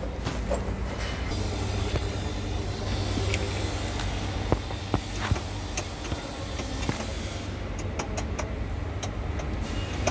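A vehicle engine running with a steady low hum, with a few sharp metallic clicks and knocks scattered through the middle.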